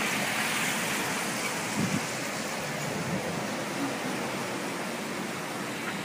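Steady hiss of falling rain on a wet street.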